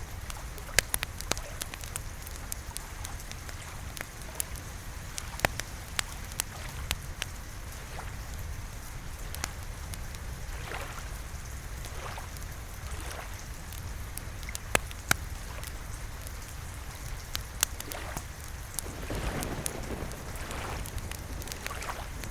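Steady rain mixed with a wood fire crackling: many scattered sharp pops and snaps over a constant low rumble and rain hiss.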